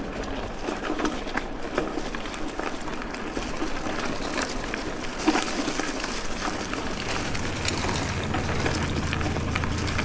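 Dense, irregular crunching and crackling of dry eucalyptus leaves and twigs under a mountain bike and riders moving through a plantation, with one sharper knock about five seconds in.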